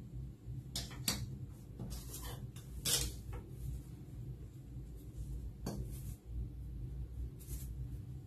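A handful of light clicks and knocks from small objects being handled and set down on a bathroom counter, over a steady low hum.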